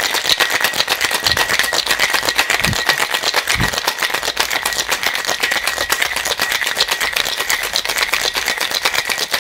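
Ice rattling hard inside a metal cocktail shaker in a vigorous, fast, steady clatter. This is the wet shake with ice that chills the cocktail after a dry shake with emulsifier.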